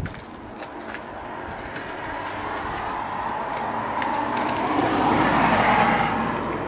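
A passing road vehicle, its noise building slowly for about five seconds, then starting to fade as it goes by.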